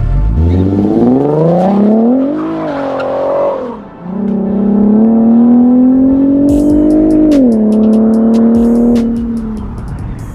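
2015 Infiniti Q50's 3.7-litre V6, breathing through a Motordyne cat-back exhaust, accelerating hard away with its note rising. The pitch drops sharply at an upshift about four seconds in, climbs again, drops at a second shift about seven and a half seconds in, then fades as the car goes away.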